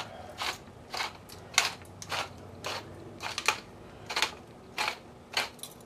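Black pepper being dispensed by hand over a raw turkey: a series of about a dozen short, crisp crunching rasps, roughly one to two a second.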